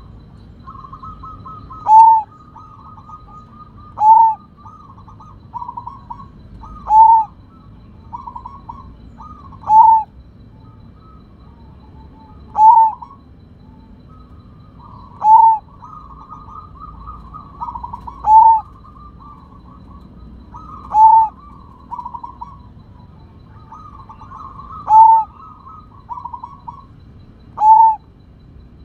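Zebra dove (perkutut) singing its cooing song: runs of soft, quick stuttering notes, each ending in a loud, clear coo, repeated about every three seconds. The coos are loud, the bird's 'big voice'.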